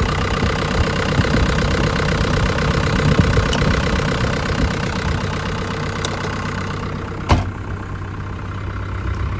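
Cat C2.4 four-cylinder diesel engine of a 2014 Cat 305E mini excavator idling steadily, with a single sharp knock about seven seconds in.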